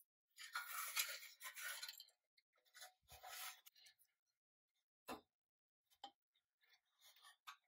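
Pressed-steel toy truck body scraping and rubbing against a steel work surface as it is handled, in two stretches. Then a few sharp metal clicks and light scratches as a hooked pick tool works at a tab on the body's underside.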